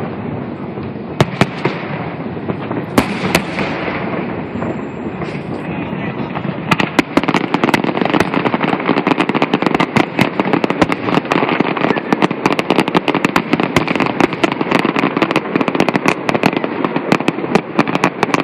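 Fireworks display: aerial shells bursting, a few scattered bangs at first, then from about six seconds in a dense, rapid crackle of many reports, over a steady rushing background noise.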